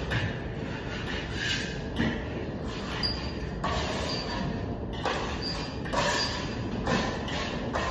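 Steel trowel working Venetian plaster on a ceiling: a series of irregular scraping strokes against the plaster, with a few faint high squeaks in the middle.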